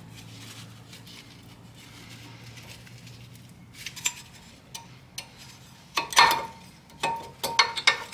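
Metal clinks and knocks of disc brake pads being pulled from the caliper bracket and set down: a few light clicks, then, from about six seconds in, a run of sharper clinks with a short ring.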